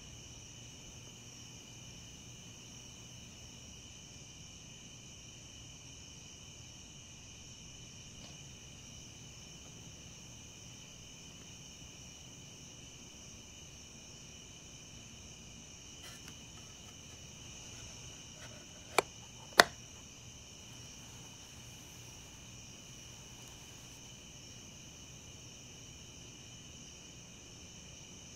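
Steady, high chirring of insects, unbroken throughout. Two sharp clicks about half a second apart, a little past the middle, stand out as the loudest sounds.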